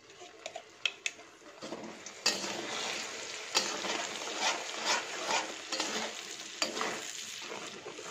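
Blended chili, shallot and garlic paste frying in oil in a steel wok, stirred and scraped with a slotted metal spatula. The sizzle is faint at first and comes up strongly about two seconds in, with scrapes of the spatula on the pan throughout.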